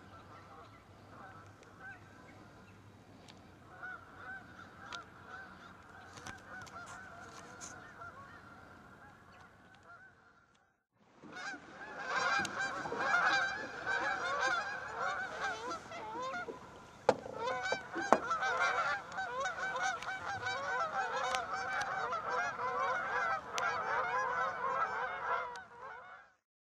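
A flock of Canada geese honking, many birds calling over one another. The calls are fainter at first, then after a short break about eleven seconds in they become a much louder, dense chorus that cuts off just before the end. Two sharp clicks stand out in the loud stretch.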